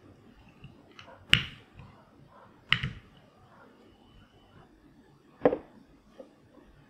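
Wooden rolling pin flattening a slice of white bread on a wooden cutting board: two sharp wood-on-wood knocks about a second and a half apart, then one more sharp knock near the end.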